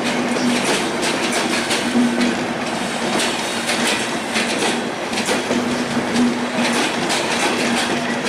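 Intercity broad-gauge passenger coaches, a PT INKA-built rake, rolling past at speed: a steady rumble of running noise with the wheels clattering over the rail joints, and a low steady tone that comes and goes.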